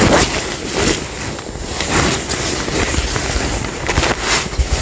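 Rough scuffing and rustling handling noise with a low rumble and many short knocks, from a body-worn camera jostled as the wearer moves and reaches down on a muddy, sandy bank.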